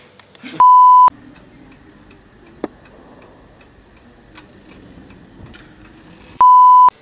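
Two loud half-second electronic bleeps of one steady tone, about six seconds apart, of the kind used to censor words. Faint room tone lies between them, with one sharp click about a third of the way through.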